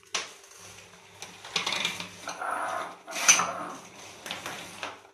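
Shredded vegetables tipped from small glass bowls into a plastic mixing bowl, with glass knocking and clattering against the bowl and countertop in a few short bursts, the loudest about three seconds in.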